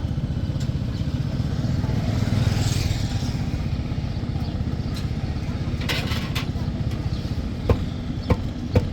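Motor vehicle engine running steadily, a low drone, with a few sharp knocks in the last few seconds.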